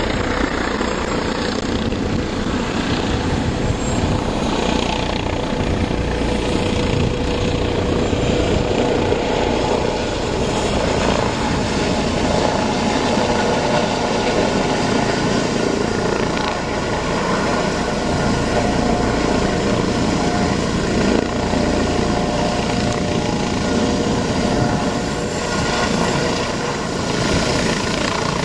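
Eurocopter EC155B helicopter flying low, its main rotor and twin turboshaft engines running steadily.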